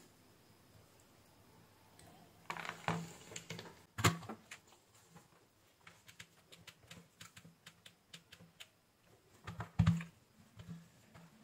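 Light clicks and taps of bench work as a soldering iron, small desoldered capacitors and a digital multimeter are handled and its buttons pressed. A louder knock comes about four seconds in and another near the end.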